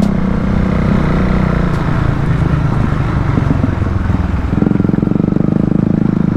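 Modified Bajaj Dominar's single-cylinder engine running on the move, a steady exhaust note; about four and a half seconds in the note changes abruptly to a lower, pulsing beat.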